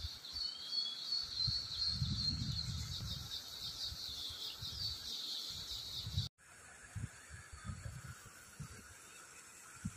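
A dense chorus of small birds chirping, with gusty wind rumbling on the microphone. The sound cuts out for an instant about six seconds in, then fainter chirping and wind carry on.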